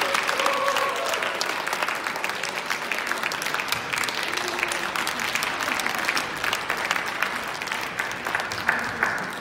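Audience applauding, a dense stretch of many hands clapping that gradually dies down toward the end.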